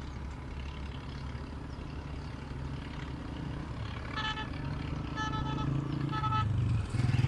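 A motor vehicle's engine running and drawing closer, growing louder and rising a little in pitch over the last few seconds. Its horn gives three short toots about a second apart, starting about four seconds in.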